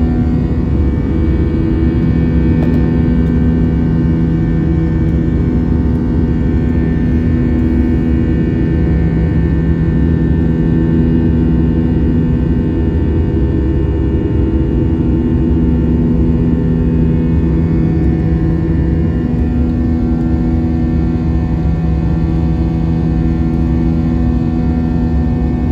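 Cabin noise of an Airbus A320 jet airliner in flight: the steady roar of its turbofan engines and rushing air, heard from a window seat beside the engine. A low drone under the roar swells and fades every few seconds.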